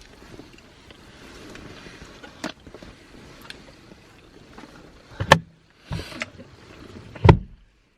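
Steady low hum inside a parked car with its engine running, broken by a few sharp knocks and handling noises, the loudest two about five and seven seconds in.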